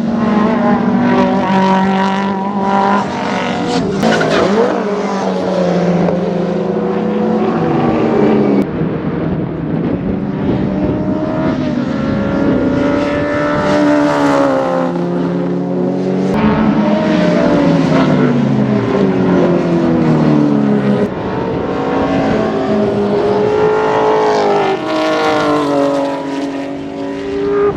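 Historic Group C and Group A touring race cars at full throttle on track. The engine note climbs in pitch and drops sharply at each gear change, several times over, with some falling glides in between.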